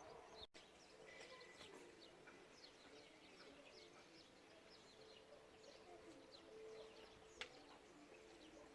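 Faint bird chirps over low background noise, with a single click about seven seconds in.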